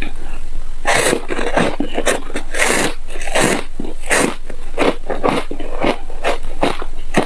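Close-miked biting and chewing of a frozen ice bar: a steady run of crunching chews, about two a second.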